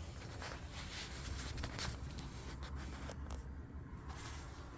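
Faint rubbing, scraping and light handling noises as a replacement circuit board is fitted into a Biasi Riva Plus combi boiler, over a low steady hum.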